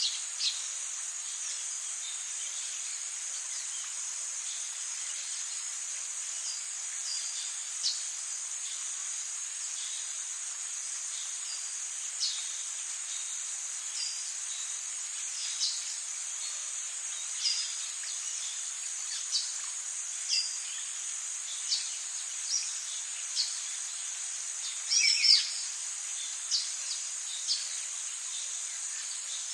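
Tropical forest ambience: a steady high-pitched insect chorus with short bird chirps every second or two, and a louder flurry of bird calls about 25 seconds in.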